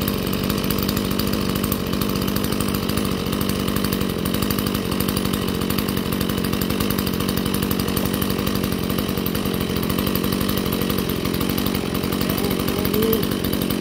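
Stihl two-stroke chainsaw engine running steadily without cutting, while its carburettor adjustment screws are turned with a small screwdriver.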